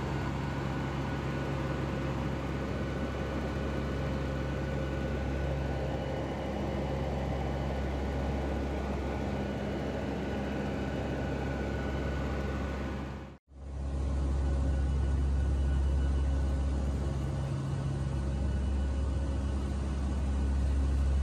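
Steady drone of a turboprop aircraft's engines and propellers heard inside the cabin: a strong low rumble with several steady hum tones over it. The sound drops out for a moment about thirteen seconds in, then carries on at about the same level.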